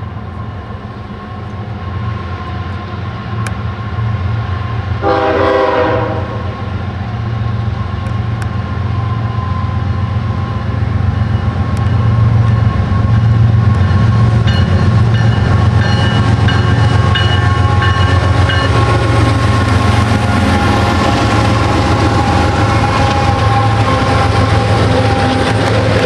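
Two GE diesel-electric freight locomotives, a CSX ES44AH and ET44AH, approaching and passing with a steady low engine rumble that grows louder over the first twelve seconds and then stays loud. One short chord-like horn blast sounds about five seconds in.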